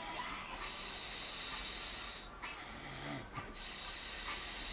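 A sleeping man snoring: hissy breaths about one to one and a half seconds long with short pauses between them, and a brief low rattle near the middle.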